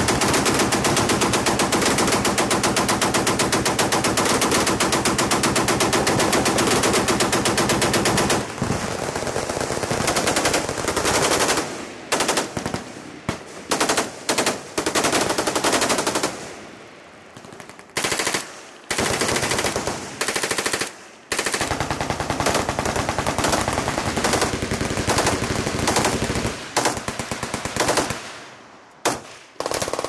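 Machine guns firing on full auto: one long unbroken stream of fire for about the first eight seconds, then a string of shorter bursts with brief pauses between them.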